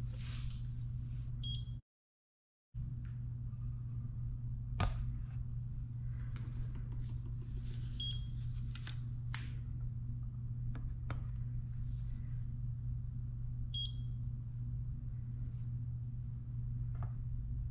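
A digital kitchen scale gives short high beeps three times, about 1.5 s, 8 s and 14 s in, as its weight reading settles. Light knocks and clicks come from metal soup cans being set down on the scale, the sharpest about 5 s in, over a steady low hum.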